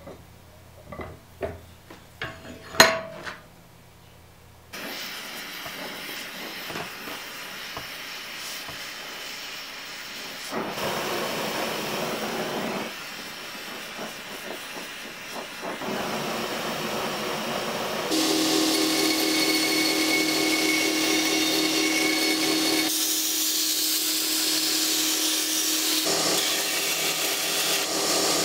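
A few light metal clinks and one sharp clack as a steel piece is handled at a bench vise, then the steady hiss of a gas torch flame heating the steel. About 18 seconds in a belt grinder starts running with a steady hum, and steel is ground against the belt.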